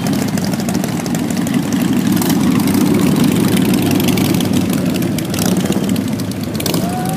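Several cruiser motorcycles riding past at low speed, engines running steadily and loudest a few seconds in. A higher steady tone comes in near the end.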